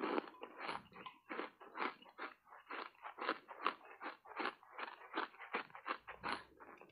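Close-up chewing of foam ice coated thickly in matcha powder: soft, steady crunches at about three a second.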